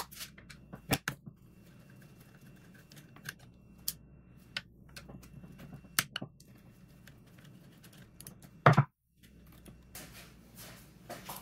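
Scattered light clicks and taps of a screwdriver turning out a battery terminal screw and of the small metal lugs and screw being handled, with one louder knock near the end.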